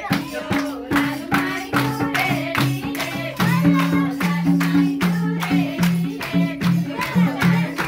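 A Nepali Teej folk song: a singing voice over a steady drum beat and a stepping bass line.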